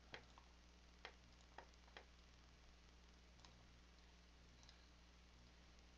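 Faint computer mouse clicks over near silence: four or five sharp clicks in the first two seconds, then a fainter one or two near the middle.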